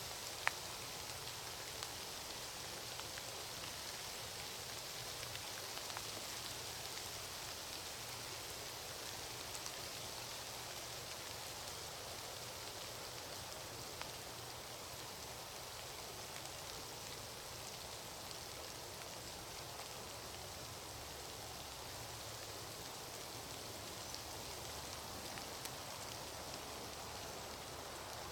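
Falling water pattering steadily, with scattered sharper drips, the clearest one about half a second in.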